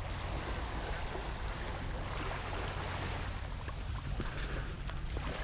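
Steady seaside ambience: wind rumbling on the microphone over the hiss of small waves washing on a sandy shore.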